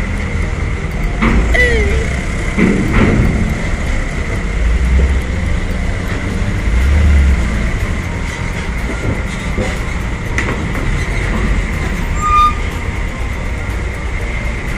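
Diesel engines of a bus and a box truck running at low speed as they drive up onto a ferry, a deep rumble with a steady high whine over it.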